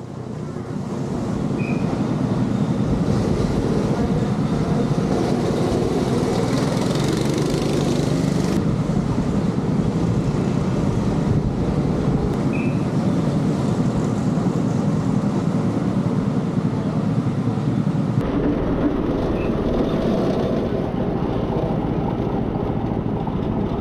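Go-kart engines running on a track, a steady loud rumble mixed with wind and motion noise. The sound changes abruptly twice, as if cut between shots.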